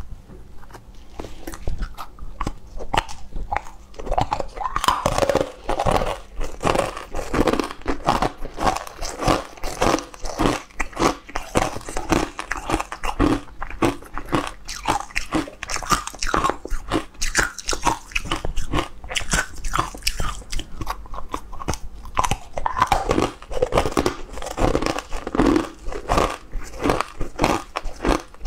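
Biting and chewing of hard, crunchy brown clumps, a rapid run of crisp crunches that starts sparse and becomes steady about four seconds in.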